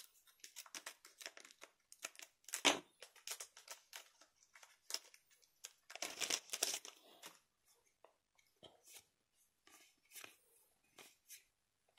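Foil wrapper of a trading-card booster pack crinkling and tearing as it is opened, in a run of short crackles, the loudest about two and a half seconds in and again around six to seven seconds in. Sparser, softer rustles follow near the end as the cards are handled.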